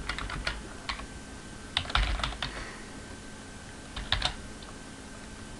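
Computer keyboard typing in short bursts: a few keystrokes near the start, a quicker cluster about two seconds in and another about four seconds in, with pauses between.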